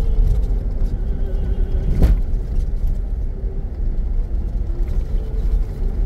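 Cabin noise of a 2021 Jeep Grand Cherokee Trailhawk driving on a dirt off-road track: a steady low rumble from the tyres and suspension, with a single sharp knock about two seconds in.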